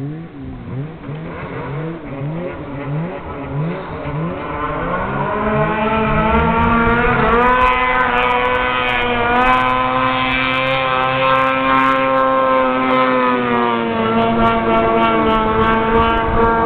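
Snowmobile engine: at first its pitch rises and falls about twice a second, then from about five seconds in it runs steadily at high revs, growing louder and holding its pitch.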